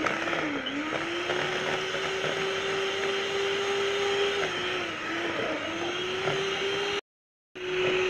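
Electric hand mixer running steadily, its beaters whirring through a creamed butter-and-egg batter in a plastic bowl. The motor's pitch dips briefly about half a second in and again around five seconds in, and the sound cuts out for about half a second near the end before the mixer is heard again.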